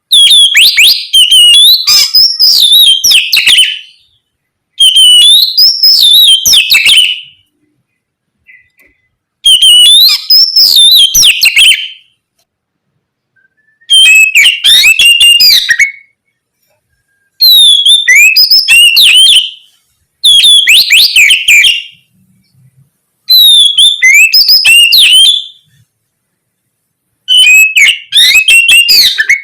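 Oriental magpie-robin (kacer) singing loudly in about eight bursts of two to three seconds each. Each burst is a rapid run of varied whistles and chattering notes, with a pause of a second or so between them.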